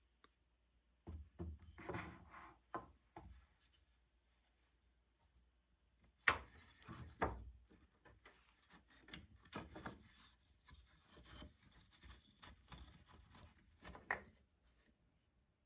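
Wooden pieces rubbing and scraping against each other in two stretches, with a few sharper knocks.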